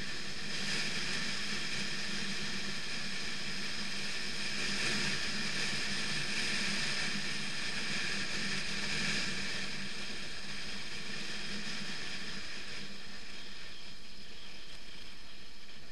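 BMW F 650 GS motorcycle riding at a steady pace on a gravel road: the engine running evenly under wind and tyre noise, a little louder in the middle of the stretch.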